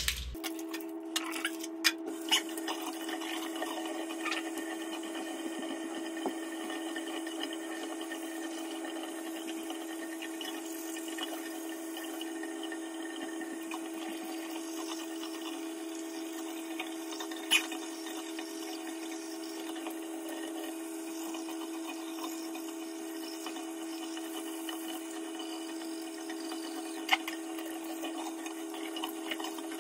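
Electric toothbrush buzzing steadily with a constant pitch while teeth are brushed, with a few sharp clicks along the way.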